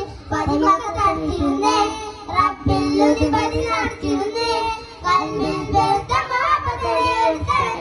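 A group of young boys singing a Mappila song (mappilapattu) together in Malayalam, amplified through stage microphones.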